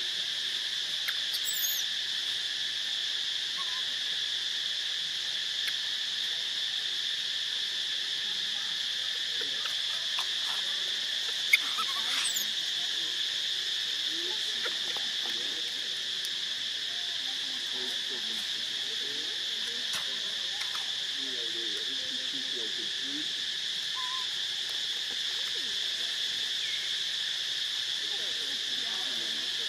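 Steady, high-pitched drone of an insect chorus, with a few brief clicks.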